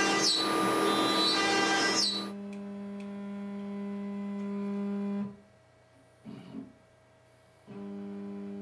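ShopBot Desktop CNC router's spindle cutting into a white oak board, whining loudly for about two seconds. Then a quieter, steady machine hum runs until about five seconds in. After a couple of light clicks, the hum returns briefly near the end.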